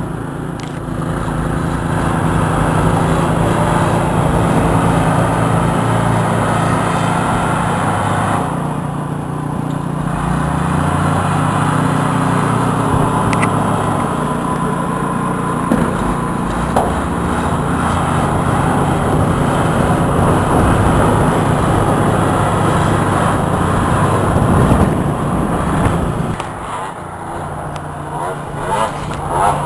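An engine running steadily, its pitch rising about ten seconds in.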